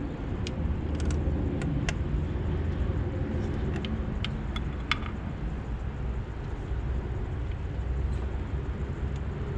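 A few short, light metallic clicks and taps in the first half, from the compression tester's adapter being handled and fitted at a spark plug hole. A steady low rumble lies under them.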